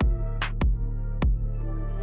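Background music: an electronic track with deep, sustained bass notes and a few sharp drum hits.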